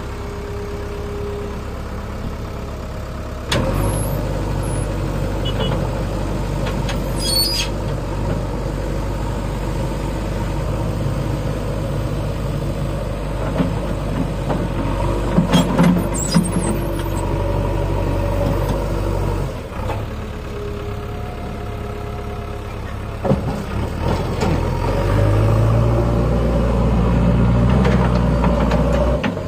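JCB 3DX backhoe loader's diesel engine running under hydraulic load, rising in revs about a few seconds in and again near the end as the bucket, backhoe and stabilizers lift and lower the machine. A few brief sharp high sounds come in the middle.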